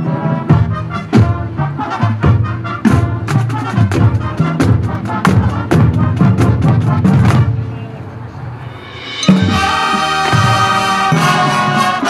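Marching band playing: brass chords over steady drum hits, easing to a softer passage a little after seven seconds in, then the full brass coming back in loudly just after nine seconds.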